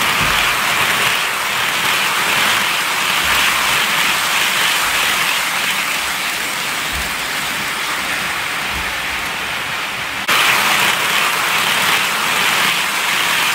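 OO gauge model train, a Bachmann Class 20/3 diesel locomotive hauling tank wagons, running round its track: a steady rushing rattle of wheels on the rails. The sound steps up slightly about ten seconds in.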